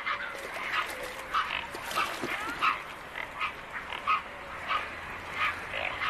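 Short animal calls repeating at an even pace, about three every two seconds, over a steady background hiss.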